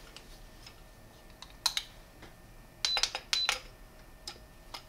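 Scattered sharp metallic clicks and clacks: a 9mm 1911 pistol being handled and a trigger pull gauge set against its trigger. The clicks come in a pair about a second and a half in, a tighter cluster around three seconds, and two more near the end.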